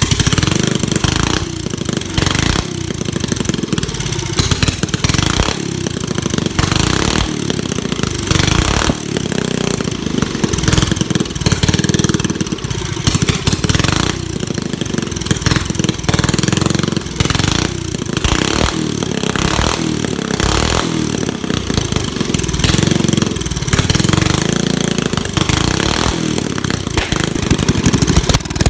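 Small pocket bike engine running, revved up and down several times between idle.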